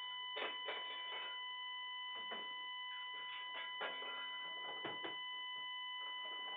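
Burglar alarm sounding one steady, unbroken high-pitched tone, with irregular clicks and rattles over it, heard through a security camera's microphone.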